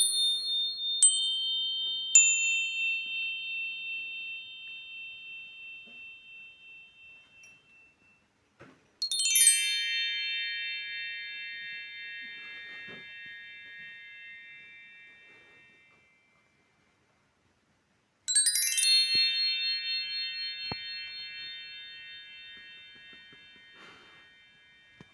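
Bright chime tones ringing out: two single high strikes near the start, then two glittering runs of many tones, about nine and eighteen seconds in, each sustained and slowly fading over several seconds.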